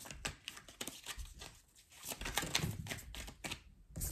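Tarot cards being shuffled and handled: a quick, irregular run of light papery clicks and flicks.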